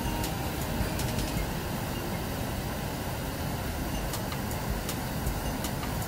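Waterfall and rapids rushing: a steady, even noise of white water pouring over rock, heavy in the low end.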